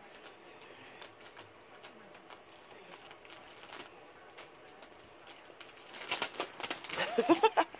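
Plastic cookie packet crinkling and rustling as a cat rummages in it with its head, getting louder about six seconds in. A short wavering vocal sound comes near the end.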